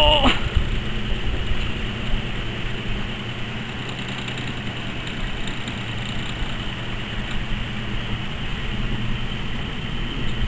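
A motor running steadily at idle with a low, even hum, under a steady rushing noise.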